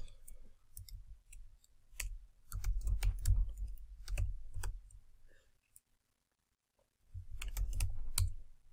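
Typing on a computer keyboard: runs of key clicks with low thuds, broken by a pause of about two seconds before a last run near the end.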